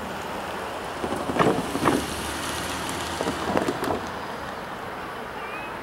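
Steady outdoor background noise with wind on the microphone, broken by two short harsh sounds about a second and a half in and three more about three and a half seconds in.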